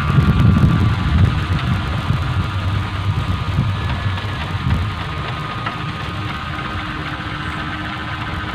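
Sendaren hummer on a high-flying sowangan kite droning steadily, with wind buffeting the microphone, strongest at first and easing off.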